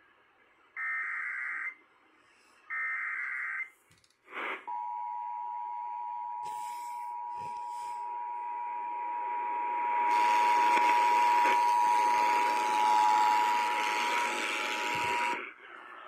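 Emergency Alert System tones playing through a small AM radio's speaker. First come two short buzzy SAME header data bursts about a second apart. Then, after a click, the steady two-tone attention signal holds for about eleven seconds, with hiss building under it partway through, before it cuts off: the signal that a severe thunderstorm warning is being broadcast.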